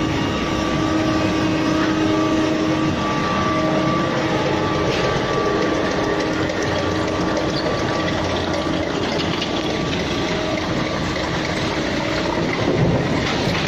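Industrial single-shaft plastic pipe shredder running, its rotor blades chopping plastic pipe into chips: a steady dense clatter over a steady hum.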